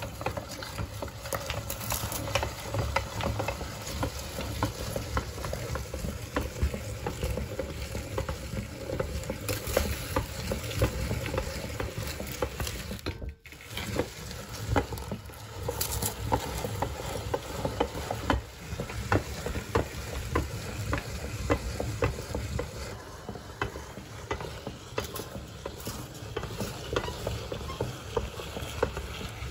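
Metal meat grinder crushing colored chocolate cones: a steady crunching and crackling as the auger breaks the pieces and forces them through the grinding plate, with a brief gap about 13 seconds in.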